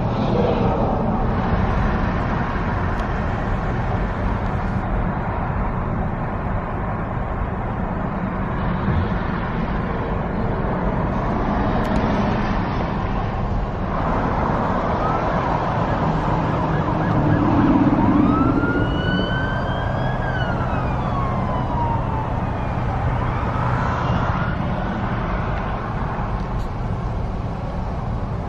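Steady road and engine noise inside a car crawling through heavy traffic. Past the middle, a siren wails, its pitch rising and falling a few times over several seconds.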